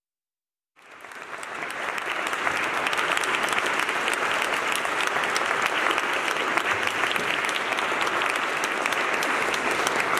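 Audience applauding: clapping comes in about a second in, swells over the next second and then holds steady.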